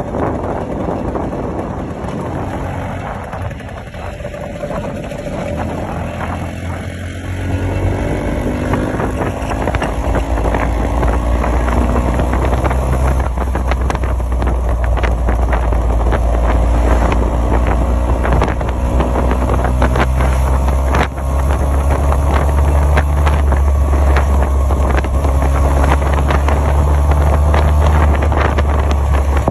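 2005 Vespa PX150's two-stroke single-cylinder engine running under way. Its pitch climbs and the sound grows louder about a quarter of the way in as the scooter accelerates, with wind rumbling on the microphone.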